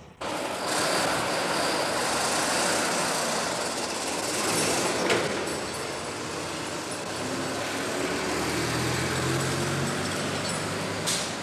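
Diesel engine of a bare, cab-less truck chassis running as it is driven, a steady loud mechanical noise with a short knock about halfway and another near the end.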